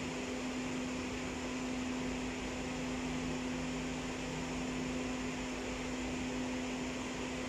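Steady mechanical hum with a low droning tone over a hiss, like a fan or ventilation unit running, unchanging throughout.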